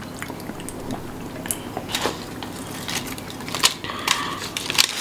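Scattered small crunches and clicks of people eating and handling snacks.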